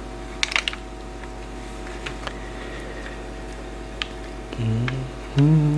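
A steady electrical hum runs throughout, with a few faint clicks. Near the end, a person gives two short hummed, wordless vocal sounds.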